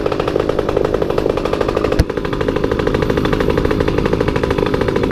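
Motorcycle engine running at a steady pace while riding, its exhaust pulsing rapidly and evenly, with a single sharp click about two seconds in.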